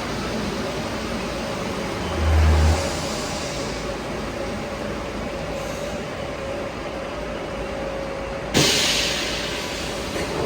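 Rubber-tyred metro train running slowly on a wet viaduct: a steady hiss with a faint steady whine. There is a short low thump about two seconds in, and a sudden loud hiss near the end that fades away.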